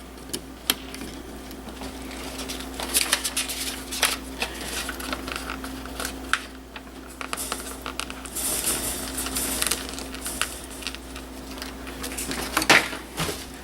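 Small clicks, taps and rustling as hands handle thermostat wires and wire labels, over a faint steady hum.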